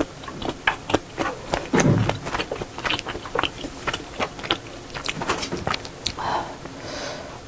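Close-miked chewing and wet mouth clicks from a person eating. Near the end a wooden spoon digs into a heap of shrimp fried rice with a soft scrape.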